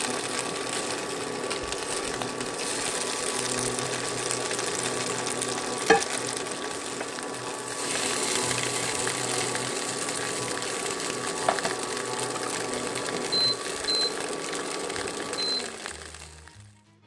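Seitan sausages sizzling steadily in oil in a frying pan as they brown, with a wooden spoon knocking sharply against the pan twice. Near the end there are three short high beeps, and the sizzle fades out.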